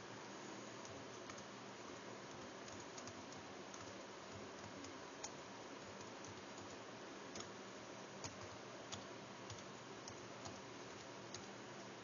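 Keystrokes on an Acer laptop keyboard as an email address and password are typed: faint, irregular clicks over a steady background hiss.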